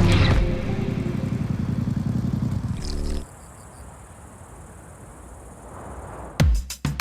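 Motorcycle engine running with a dense low rumble, stopping abruptly about three seconds in and leaving only faint background noise. A few heavy thumps near the end.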